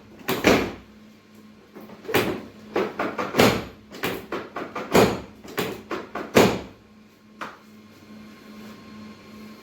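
A run of short knocks and scrapes, several a second in clusters, that stops about six and a half seconds in, leaving a faint steady hum.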